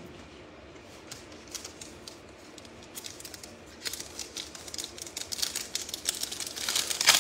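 Foil wrapper of a Prizm Draft Picks basketball card pack crinkling and crackling in the hands as it is handled. The crackles start about four seconds in and grow denser and louder toward the end.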